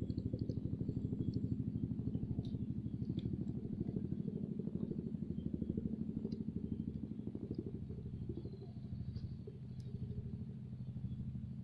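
A small engine running steadily, with a fast even beat that eases off slightly in the second half. A few faint ticks sound over it.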